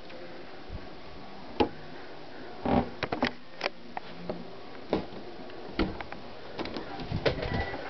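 Scattered short, sharp clicks and knocks, about eight, with a quick cluster a little under three seconds in, over a steady low hiss.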